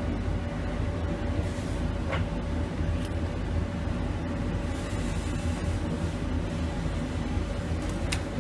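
A steady low mechanical rumble with a faint hum, broken by a few light clicks about two, three and eight seconds in.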